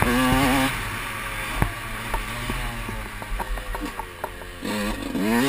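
Motocross bike's engine revving, then shut off for a corner: for about four seconds it runs low and quiet off the throttle, with scattered sharp clicks and rattles from the bike. Near the end it is back on the throttle and revving hard again.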